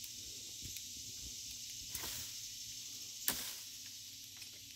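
Pruning dead branches up in a tree: a light snap about two seconds in and a louder, sharp snap about three seconds in, over a steady high-pitched hiss.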